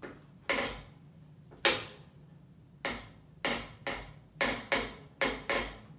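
A series of about nine sharp knocks close to the microphone, spaced unevenly and coming faster in the second half, each with a short ringing tail.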